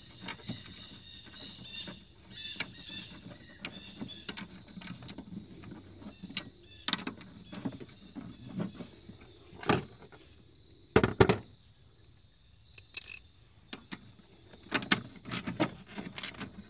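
Small hand tools clicking and knocking as terminal nuts are tightened onto a new fuse block in a truck's engine bay: quick light ticks at first, then a few sharper knocks about two-thirds through.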